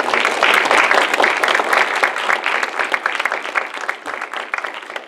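Audience applauding: many hands clapping at once, loudest at the start and dying down toward the end.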